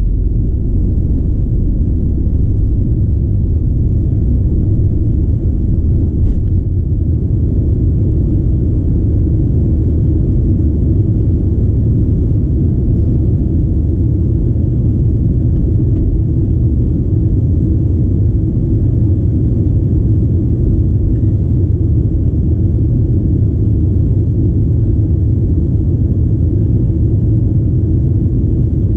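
Steady low rumble of an Avro RJ85's four Honeywell LF507 turbofans and the airflow around them at takeoff thrust, heard from inside the passenger cabin as the jet climbs out.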